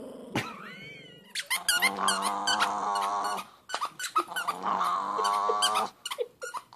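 Chihuahua growling with its teeth bared, in two long, steady growls of about two seconds each with a short break between.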